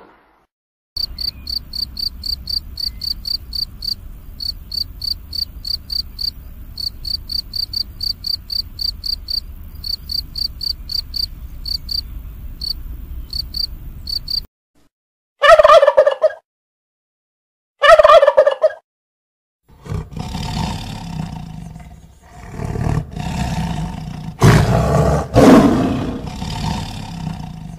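A field cricket chirping in a steady run of short, high chirps, several a second. It stops about halfway through. Two loud, short animal calls follow, a couple of seconds apart, and then a tiger roaring and growling for the last several seconds.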